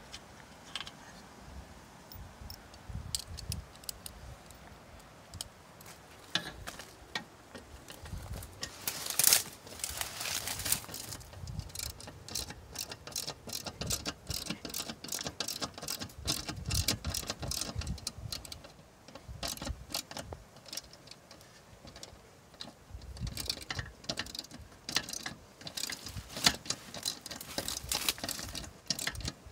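Screwdriver working screws out of a sheet-metal electrical meter base: irregular runs of small metallic clicks and scrapes, with a louder scrape about nine seconds in.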